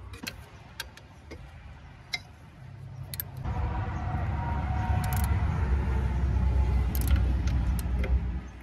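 Socket ratchet clicking now and then while the belt adjuster bolt by the alternator is tightened to put tension on the new belt. About three and a half seconds in, a louder low rumble sets in and holds for about five seconds before it drops away.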